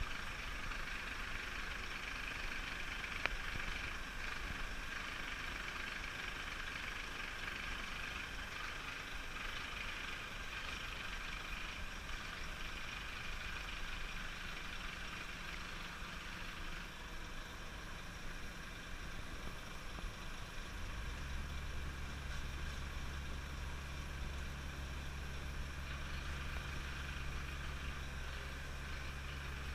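Heavy asphalt truck's diesel engine running steadily while its spreader body lays asphalt, with a steady mechanical hiss over it. About two-thirds of the way through, a deeper steady engine hum comes in and holds.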